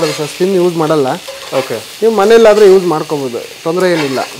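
Chicken pieces sizzling in a hot iron pan while a metal spatula stirs and scrapes across the pan in repeated strokes, each scrape giving a pitched squeal that bends and drops as the stroke ends.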